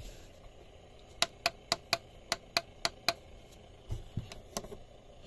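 Plastic push buttons on a Hello Kitty KT2052P alarm clock radio clicking as they are pressed: about eight quick clicks in a row, roughly four a second, then a few softer taps.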